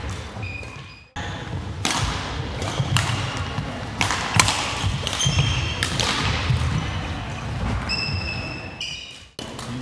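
Badminton rally on a wooden hall court: racket strings striking the shuttlecock again and again, with court shoes squeaking and thudding on the floor. The loudest hit comes just after four seconds in, on a jumping overhead shot. The sound drops out briefly about a second in and again near the end.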